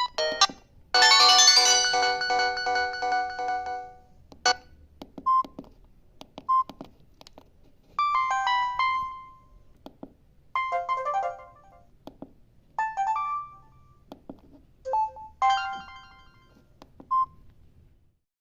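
Samsung GT-E1070 phone's speaker playing short electronic alert tones one after another. A chord rings out for about three seconds, then come four brief chiming jingles about two to three seconds apart and a last short blip, with faint ticks in between.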